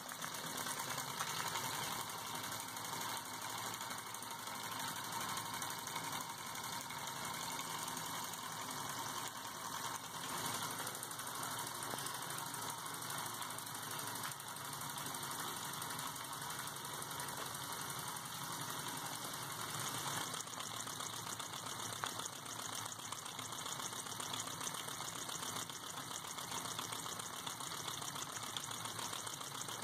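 Small single-cylinder model steam engine running steadily at speed: a rapid, even mechanical clatter of the piston, valve gear and spinning flywheel, with puffs of exhaust steam.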